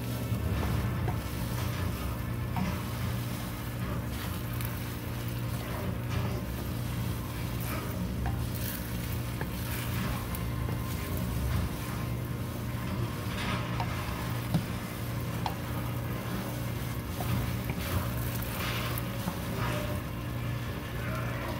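Sweet green sticky rice (biko) sizzling in oil in a nonstick wok while a wooden spatula stirs and presses it, with repeated short scrapes and taps against the pan, over a steady low hum. The rice is being cooked down in the oil until it turns thick and chewy.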